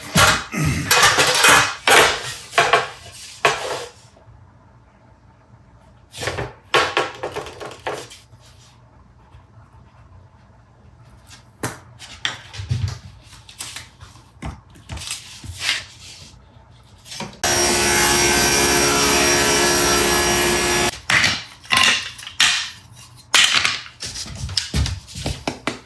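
Woodworking on thin walnut sheet: a run of knocks, taps and scraping handling noises, with a power tool running steadily for about three and a half seconds past the middle.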